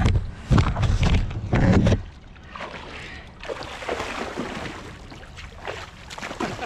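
Water splashing and sloshing around a kayak, with heavy low bumps and rumbles in the first two seconds, then lighter splashes.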